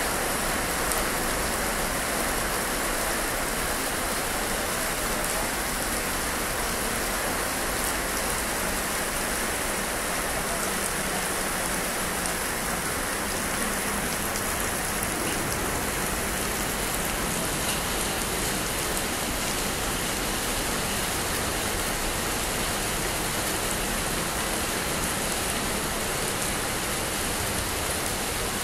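Steady rain falling on wet ground, an even hiss of drops with no change in strength.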